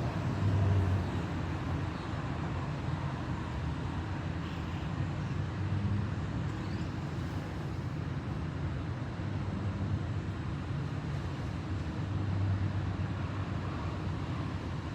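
Steady low rumble under an even hiss of background noise, with a few slight swells and no distinct events.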